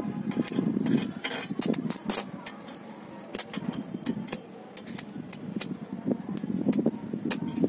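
Irregular sharp crackling snaps of electric arcing as a welding electrode touches steel, powered from the mains through a homemade salt-water bucket current limiter now strengthened with about 100 g of salt.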